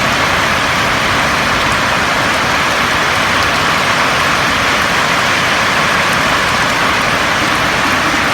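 Rain falling steadily on a roof: an even, unbroken hiss at a constant level.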